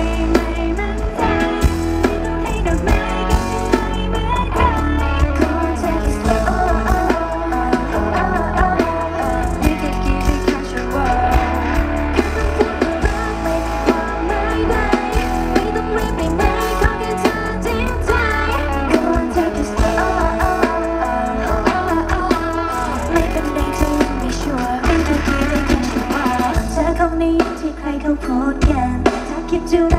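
Loud live pop-rock music over a concert PA, with drum kit, guitar and female singing.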